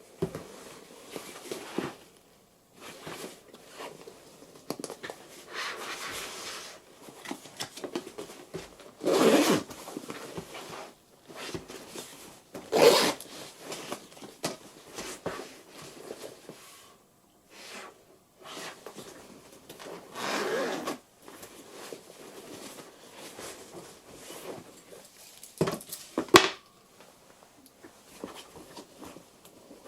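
Zippers pulled and fabric rustled as a Pink Lining Mini Yummy Mummy diaper bag is handled, with several louder zip strokes and one sharp click late on.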